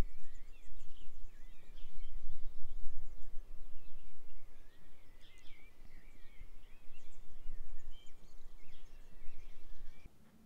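Outdoor ambience of several songbirds chirping and twittering over a low, uneven rumble; the sound cuts off abruptly near the end.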